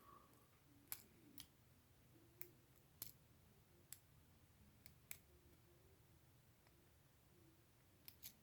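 Faint, irregular clicks of a lock pick and tension wrench working the pin stack inside an Abus 72/40 padlock, about nine light clicks spread unevenly over several seconds.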